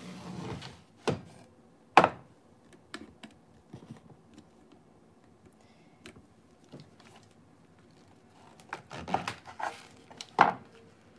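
Knife knocking on a wooden cutting board as a chef's knife cuts the base off a clump of shimeji mushrooms: scattered sharp knocks, the loudest about two seconds in, then a quick run of cuts near the end.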